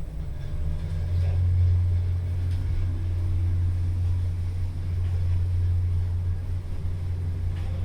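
Schindler 3300 passenger lift travelling, heard inside the car: a steady low hum that comes up about a second in.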